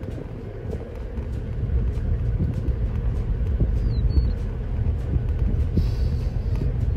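Safari vehicle's engine and tyres, a low rumble that swells over the first couple of seconds as it drives slowly over the grassland. A short high chirp sounds about four seconds in.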